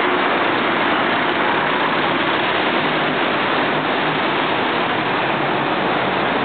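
Steady street noise: an even, dense hiss with a low engine hum running underneath.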